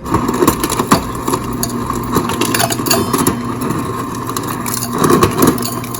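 Samsung refrigerator door dispenser crushing and dispensing ice: the motor grinds steadily while chunks of crushed ice rattle and click out. It starts abruptly.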